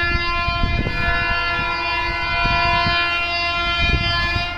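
Indian Railways locomotive air horn held in one long blast, several tones sounding together, cutting off near the end. Under it run the rumble and irregular wheel knocks of a train's coaches passing along the platform.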